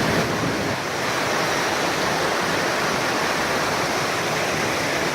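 A waterfall's falling water rushing: a steady, even noise with no change in level.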